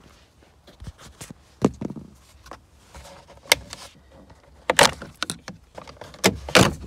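Plastic interior trim around a car's steering column being handled and pulled off: a string of sharp clicks and knocks, the loudest a little under five seconds in and twice near the end.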